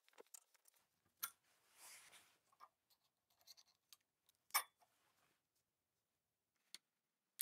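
Near silence broken by a few faint metal clicks and a short scrape: a mini bearing puller being fitted and worked on the small bevel gear of a Makita 9005B angle grinder's armature. The loudest click comes a little past halfway.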